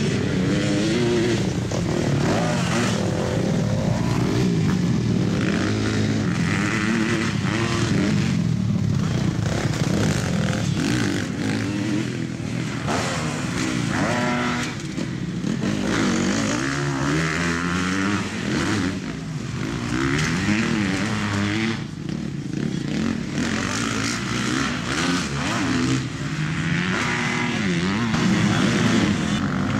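Motocross dirt bike engines revving on a track, their pitch rising and falling over and over as the riders open and close the throttle.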